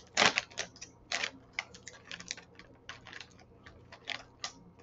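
Plastic snack bag crinkling and tearing as it is pulled open by hand: a run of irregular crackles, loudest in the first second or so.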